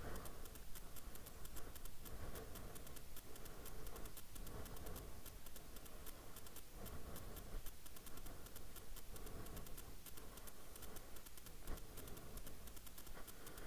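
Light rain pattering in many fine, fast ticks, with soft footsteps about once a second.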